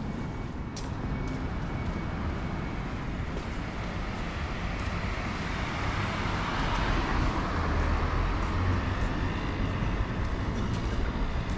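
City street traffic with a low rumble, and a vehicle passing close whose noise swells to a peak about seven seconds in.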